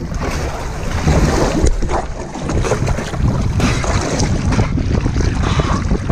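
Strong wind buffeting the microphone in gusts over rushing, splashing water, from a small sailing skiff under way in a 22–28 knot breeze.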